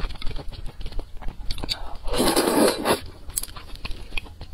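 Close-miked eating sounds: chewing with small wet clicks, and a long slurp of thick noodles about two seconds in.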